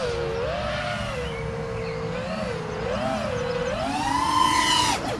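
A 4S freestyle FPV quadcopter's brushless motors and propellers whining, the pitch wavering up and down with the throttle. Near the end the whine climbs higher and louder for about a second, then drops sharply.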